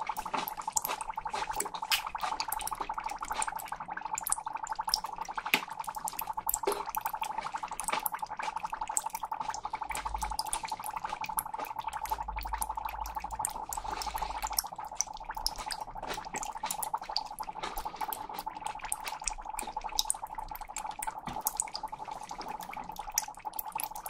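Dry ice in a glass dish under a bamboo mat making a steady buzzing hum as it sublimates, with scattered crackles and ticks.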